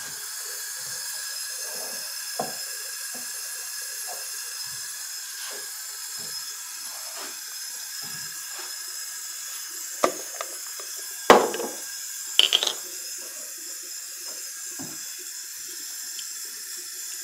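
Kitchen tap running into a stainless steel sink, a steady hiss of water left running to warm up. A few sharp knocks come a little past halfway, the loudest about two-thirds of the way through.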